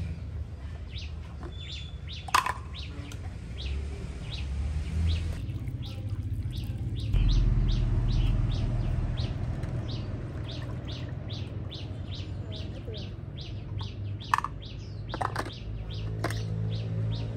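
Water pouring from a thermos flask into a plastic basin, louder for a couple of seconds around the middle, over a steady run of short high chirps about twice a second, two of them louder.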